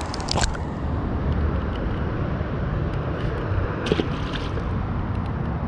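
Small metal clicks of pliers working the hook and lure free from a bream's mouth, then one short splash about four seconds in as the released fish hits the water. Under both is a steady low rumble.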